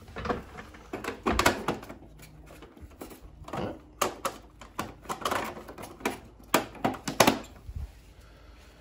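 Plastic electrical-compartment cover being handled and pressed onto a ductless mini-split indoor unit: a string of irregular sharp plastic clicks and knocks as it is worked into place.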